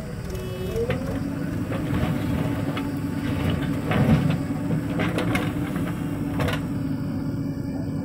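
JCB 3DX backhoe loader's diesel engine running steadily under hydraulic load as the backhoe arm swings a full bucket over and dumps the soil into a tractor trolley. The engine note dips and climbs back about a second in, short knocks come through the middle, and the loudest thud, about four seconds in, is the bucket of soil dropping into the trolley.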